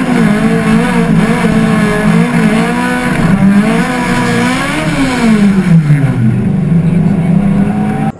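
Opel Kadett GTE hillclimb race car's four-cylinder engine running hard, its revs wavering up and down with the throttle. The revs climb to a peak about five seconds in, then drop over about a second and hold lower.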